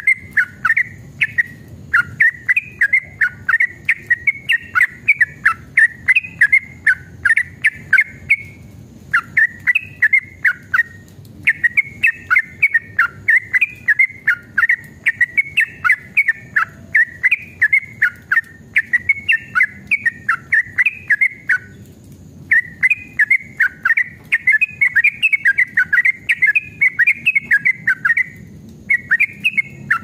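Yellow-vented bulbul (trucukan) singing long runs of rapid, bubbly chattering notes. The phrases last several seconds, broken by a few short pauses, over a faint low background rumble.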